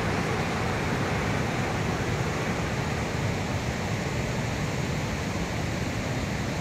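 Steady rushing of a mountain river in full flood, its muddy water running far above the danger mark.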